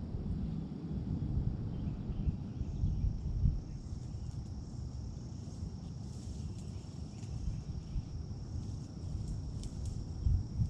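Wind buffeting the microphone in an uneven low rumble, under a steady high-pitched insect trill.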